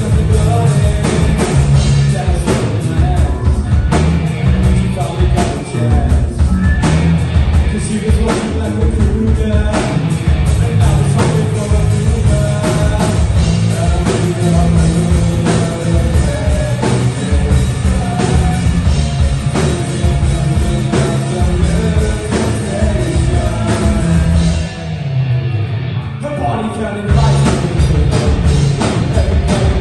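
Live rock band playing loudly, with electric guitars, bass, drums and a singer. About 25 seconds in the music thins out for a couple of seconds, then the full band comes back in.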